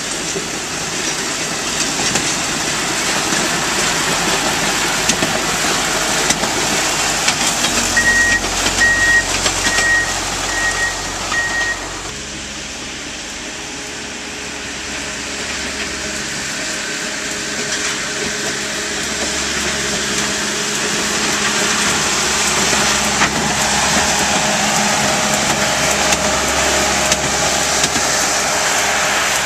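Diesel engines of railroad maintenance-of-way machines running as they roll past on the rails, a steady loud engine and rolling noise that builds as a machine passes close near the end. About eight seconds in comes a run of short, evenly spaced high beeps, and about twelve seconds in the sound drops suddenly.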